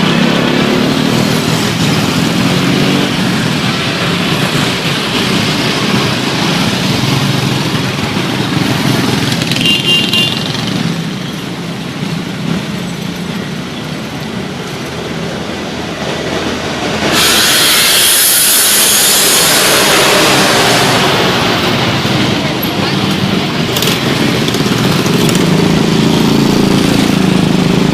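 Roadside traffic: bus and vehicle engines running and passing, with voices. A short high tone about ten seconds in, and a loud hiss that starts about seventeen seconds in and lasts some four seconds.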